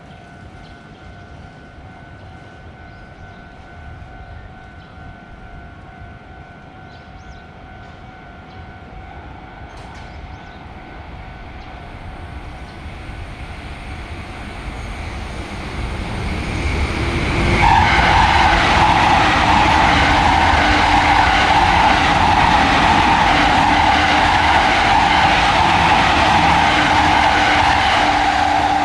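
A train approaching a railroad crossing and passing close by: its running noise builds gradually, then turns loud and dense about eighteen seconds in, with a steady tone over the passing noise.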